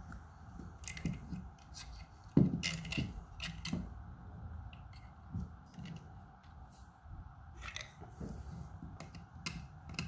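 Handling noises from a plastic USB power point and its cable ends: scattered light clicks and knocks, with one sharper knock about two and a half seconds in.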